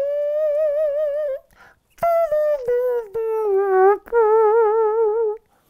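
A slow little tune played on a small instrument held in cupped hands at the mouth. It opens with a long wavering note, then a falling run of short, sharply started notes, then a lower wavering note.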